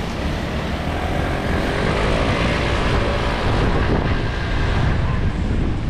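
Wind buffeting a moving action camera's microphone, a steady low rumble and hiss, with a passing vehicle's engine drone that glides up and down in pitch about two to four seconds in.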